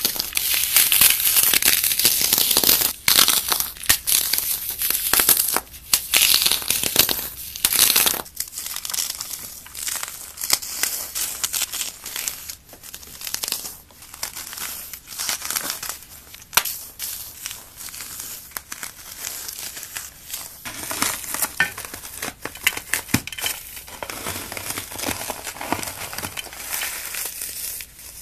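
Fingers crushing and breaking paste-coated dry floral foam: dense, crisp crackling and crunching. It is loudest for the first eight seconds, then turns to quieter crumbling with scattered sharp snaps.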